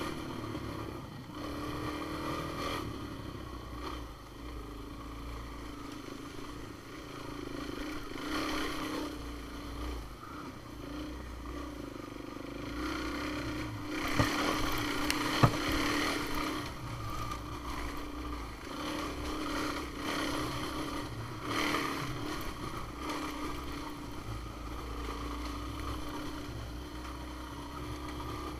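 Off-road vehicle engine running at a cruising pace, swelling and easing with the throttle. Two sharp knocks come about halfway through.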